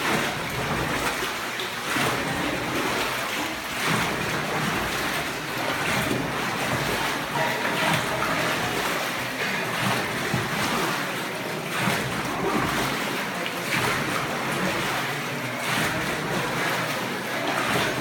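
Dragon boat paddle strokes in a paddle-pool tank: the blade catches and pulls through the water about once every two seconds, each stroke a splashing surge over a steady churning wash of water.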